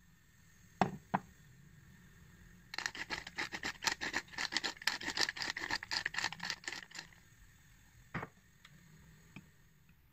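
Two quick knocks of crockery on a wooden board, then about four seconds of fast scratchy scraping strokes, then another single knock.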